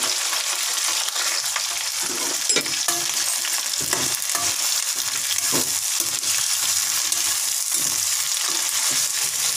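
Cauliflower florets sizzling steadily as they fry in hot oil in a kadhai, with the scrape and knock of a metal spatula stirring them now and then.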